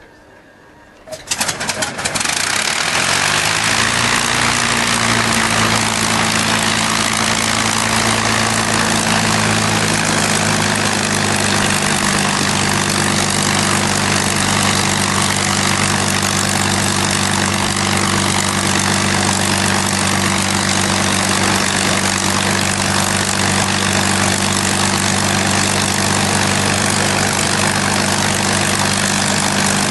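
A P-51 Mustang's Packard Merlin V-12 engine starting about a second in: a short run of sputtering catches, then it fires and settles into a steady idle.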